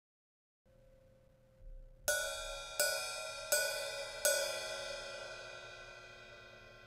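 Zildjian 14-inch A Custom Mastersound hi-hat cymbals struck four times, about three quarters of a second apart, each hit ringing on. The ringing slowly dies away after the last hit.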